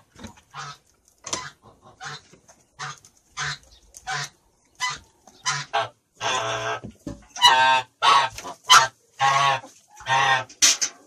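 Domestic poultry calling: a quick run of short calls, with longer, louder calls from about six seconds in.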